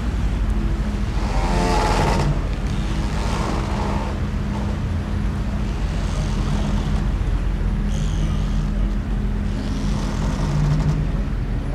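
Steady low engine rumble with a constant hum. About a second and a half in, a brief louder hissing sound with a buzzing tone passes over it.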